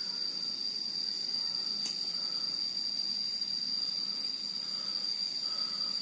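Insects droning in one steady high-pitched tone, with a few faint clicks.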